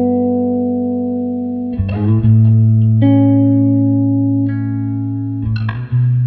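Ibanez electric bass played solo: plucked chords of several notes left to ring, moving to a new chord about every one to two seconds.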